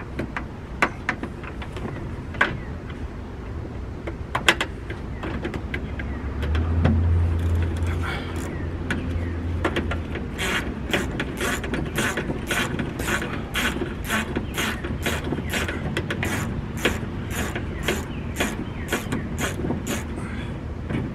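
A 10 mm ratchet wrench backing out a door-handle screw: scattered clicks at first, then a steady run of ratchet clicks about twice a second for the second half. A low hum swells for a few seconds about seven seconds in.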